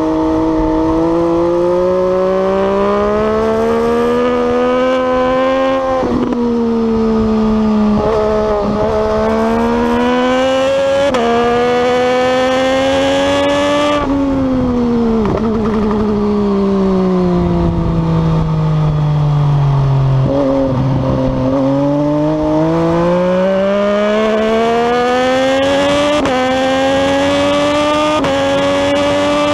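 MV Agusta Dragster 800's three-cylinder engine at full throttle. The pitch climbs in each gear and drops sharply at each upshift, then falls steadily through downshifts and braking before it pulls hard up through the gears again.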